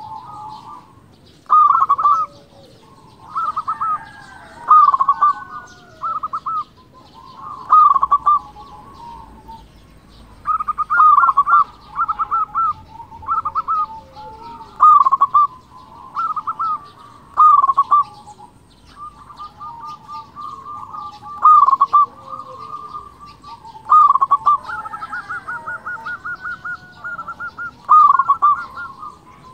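Zebra dove (perkutut) singing: loud bursts of quick, clipped cooing notes, repeated every one to two seconds. Fainter cooing phrases overlap it, and small birds chirp lightly in the background.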